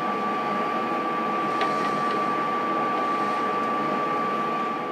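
Lathe's electric motor and belt drive running steadily with a constant whine, with a faint click about a second and a half in.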